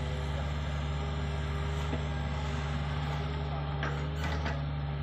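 Hitachi Zaxis 48U mini excavator's diesel engine running steadily under load while the arm digs and lifts soil, with a few short knocks of the bucket about four seconds in.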